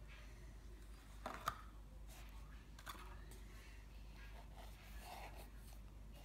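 Fingers handling and turning a small cardboard lighter box, with faint rubbing and a couple of sharp taps about a second and a half in, and a lighter click near three seconds.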